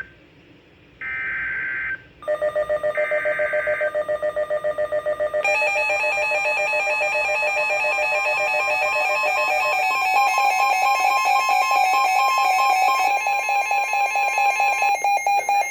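Emergency alert on a weather radio: two short screeching bursts of SAME digital header data, about two seconds apart, announcing a severe thunderstorm warning. From about two seconds in, a loud rapidly pulsing electronic alarm sounds. It shifts in pitch about five and again about ten seconds in.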